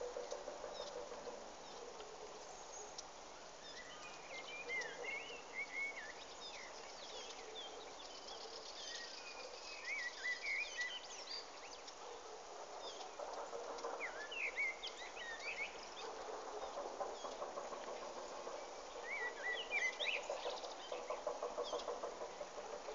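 Small birds calling in clusters of short, quick, sliding chirps, repeated several times, over a lower, rapidly pulsing hum that swells and fades a few times.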